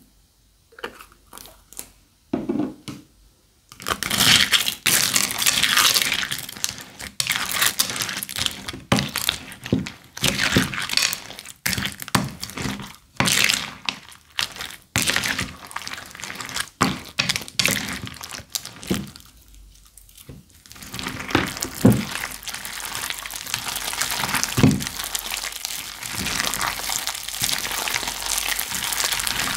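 Crunchy slime being squeezed and worked by hand, crackling and crinkling with many sharp clicks. It starts sparse, turns dense about four seconds in, and eases briefly about two-thirds of the way through.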